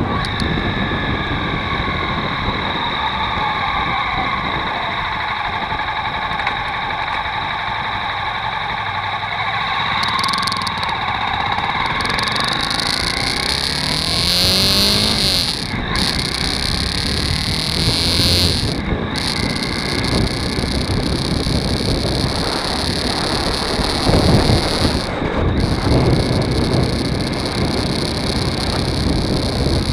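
Motorcycle under way: the engine running with wind noise rushing over the bike-mounted microphone. The engine note shifts as the bike speeds and slows, climbing for a couple of seconds a little before the middle.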